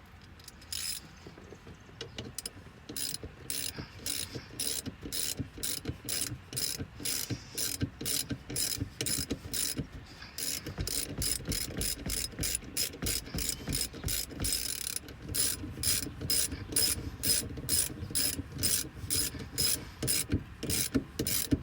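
Hand socket ratchet clicking through repeated strokes, about two or three a second, as a nut is worked with a 1/4-inch socket.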